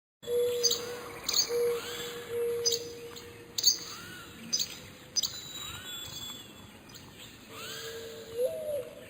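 Wild birds calling: sharp, high chirps that drop quickly in pitch, repeating roughly once a second, mixed with softer arched notes. A steady low tone runs underneath.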